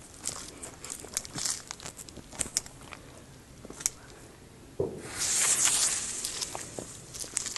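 Colour Salute firework crackling: many small sharp pops and snaps. About five seconds in comes a sudden, louder burst of hissing crackle that fades over a second or two.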